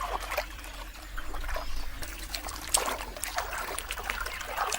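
Shallow floodwater splashing and trickling in many small, irregular splashes as baboons wade through it.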